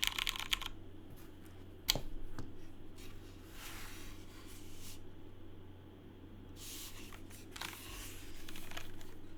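Typing on a mechanical keyboard with lubed Cherry MX Hyperglide Brown switches trails off in the first moment. One sharp click comes about two seconds in, followed by two stretches of soft rubbing, rustling noise.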